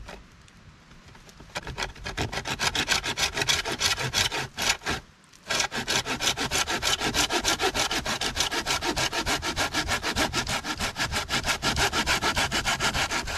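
Bahco Laplander folding pruning saw cutting shallow kerfs into a partly rotted log with fast back-and-forth strokes. A few slow strokes start it, it stops for about a second near the middle, then resumes steadily.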